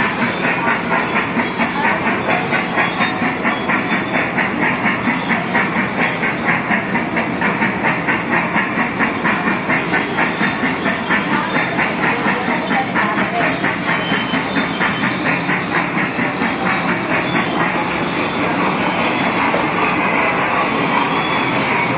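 Thomas the Tank Engine kiddie ride train running, with a steady rhythmic clatter of about three beats a second that evens out near the end.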